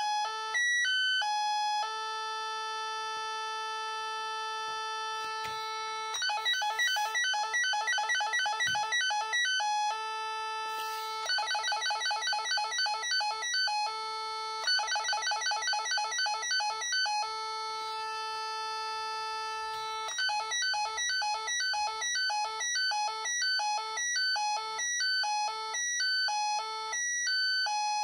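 Electronic beeping from the speaker of a Science Fair 200-in-One kit running its 'Wheel of Fortune' logic circuit. Several times over, a run of rapid, stepping beeps slows down and settles on one steady buzzing tone: the wheel spinning and stopping at a position.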